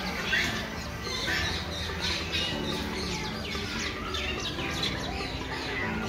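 Many small birds chirping in an aviary: a busy run of short, quick, downward-sweeping chirps, over a low steady hum.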